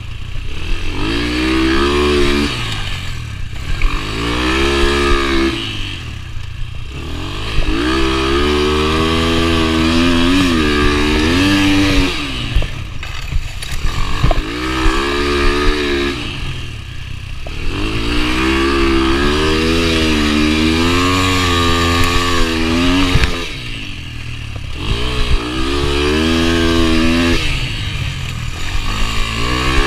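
Yamaha TT-R125's small single-cylinder four-stroke engine being ridden hard on a dirt track. It revs up on each straight and drops off each time the throttle is closed for a turn, about seven times.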